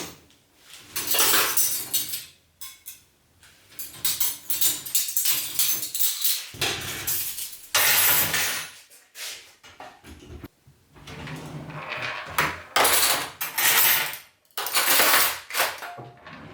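Irregular clattering and rustling of household objects being handled, like dishes and cutlery being moved about, in a string of short noisy bursts with brief pauses between.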